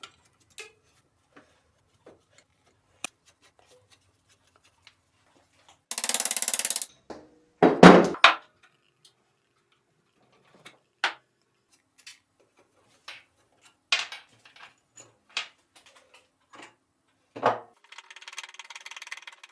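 Scattered clinks and knocks of metal milling-machine parts being handled while the cross slide is worked on. A short hissing burst comes about six seconds in, followed a second later by the loudest clunk, and a steady whirring noise starts near the end.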